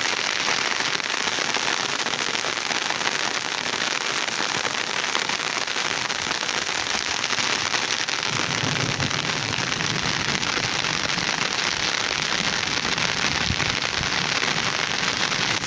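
Steady rain falling on bare ploughed sandy ground, an even, unbroken hiss of drops.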